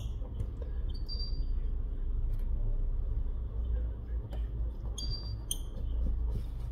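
Hands fitting a small plastic cover over the battery connector inside an opened Google Pixel 4 XL: faint clicks and a few short, high squeaks, about a second in and again near the five-second mark, over a low steady hum.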